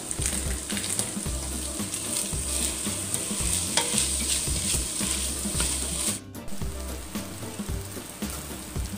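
Diced chicken breast and corn sizzling in a stainless steel pot while being stirred with a wooden spoon, with scattered scrapes and knocks of the spoon against the pot. The sound drops out briefly about six seconds in.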